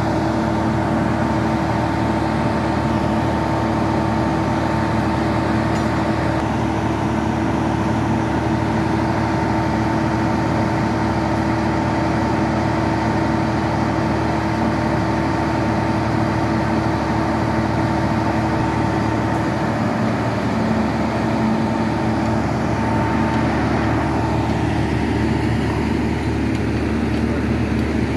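Engine of a truck-mounted flash butt rail-welding machine running steadily, a constant drone with a steady whine in it; a higher tone in the whine drops out late on. No welding flash is heard.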